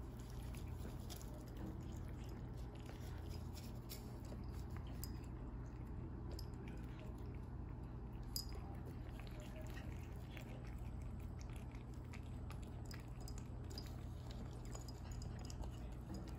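Cats chewing and biting strips of meat: many small wet clicks and crunches scattered throughout, one sharper click about eight seconds in, over a steady low hum.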